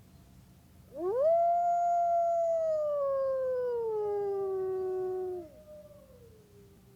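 Wolf howling: one long howl that swoops up at the start, holds, then slowly slides down in pitch before cutting off. A second, fainter howl comes in lower near the end and trails away.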